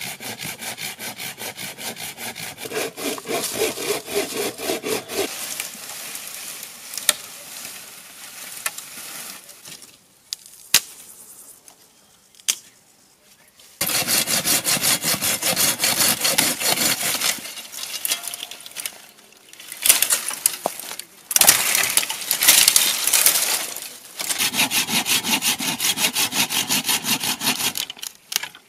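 Hand saw cutting dry dead branches with fast, even back-and-forth strokes, in three spells of several seconds each. Between the spells come a few sharp single cracks of dry wood and the rustle of branches being handled.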